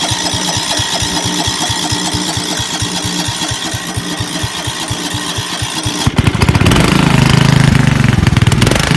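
Riding lawnmower's small engine running with an even, pulsing chug. About six seconds in it suddenly jumps to a louder, faster run.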